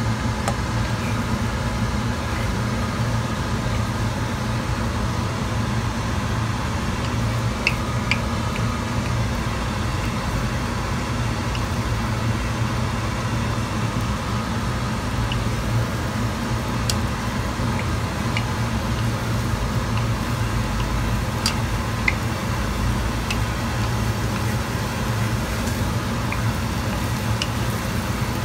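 A steady low mechanical hum, with a few faint clicks of a wooden spatula against a frying pan where egg with shrimp is cooking.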